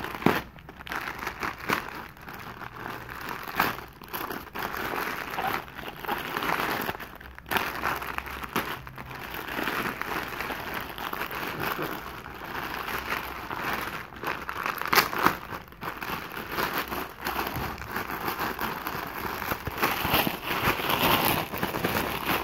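Plastic courier mailer bag and crumpled wrapping crinkling and rustling continuously as they are handled and the contents are pulled out.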